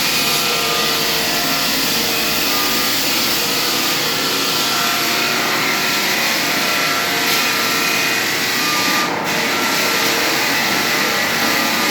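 Hardwood floor sanding machine running steadily: a motor whine over an even hiss of abrasive on wood.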